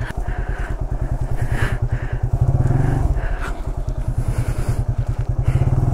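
Motorcycle engine running at low revs with an even, rapid pulsing beat, a little louder for a moment about two and a half seconds in.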